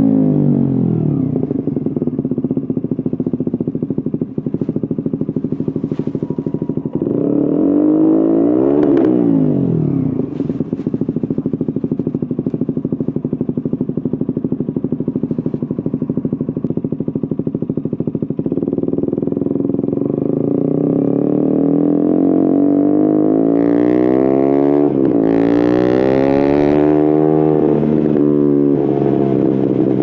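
2017 KTM Duke 125's single-cylinder four-stroke engine through an Akrapovic exhaust with a decat link pipe. It slows down, runs steadily with a quick rev and drop about eight seconds in, then revs up in rising pulls broken by gear changes in the last third.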